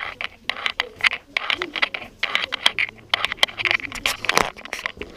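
Quick, irregular clicks and scuffs of footsteps on a gritty stone floor, with indistinct voices of people nearby.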